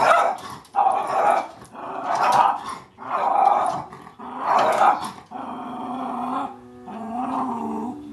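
Cairn terrier growling and barking in rough bursts about once a second, quieter after about five seconds.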